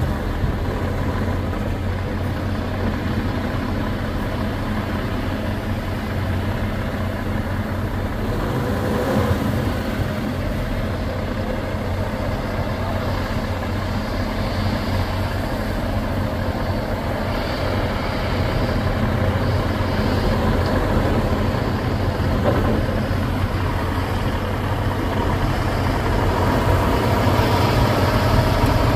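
Heavy diesel engine running steadily, getting a little louder near the end as the log truck pulls up close.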